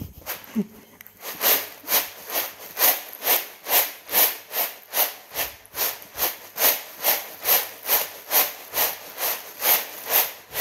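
Roasted coffee beans shaken and tossed in a woven bamboo winnowing tray, rattling and swishing on the bamboo in a steady rhythm of about two strokes a second. This is winnowing, shaking the papery chaff off the freshly roasted beans.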